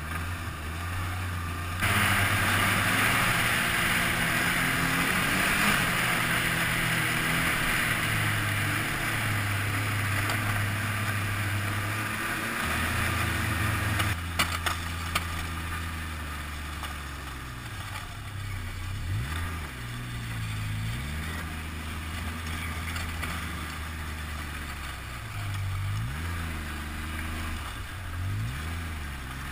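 Snowmobile engine running while riding, with a loud rush of wind and track noise for the first ten seconds or so. Then it runs slower and quieter, with a few sharp clicks about fourteen seconds in and several short revs that rise and fall near the end as the sled slows and pulls up.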